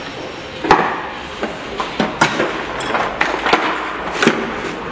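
Hand rummaging through a plastic toolbox: hand tools clattering and knocking against each other and the plastic case in irregular sharp knocks, a few louder than the rest.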